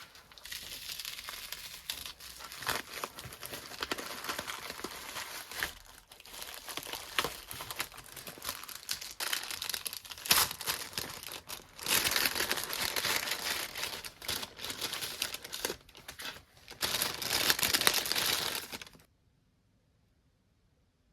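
Parcel packaging being crinkled and torn open by hand: continuous crackly rustling, loudest in two stretches in the last third, stopping abruptly about two seconds before the end.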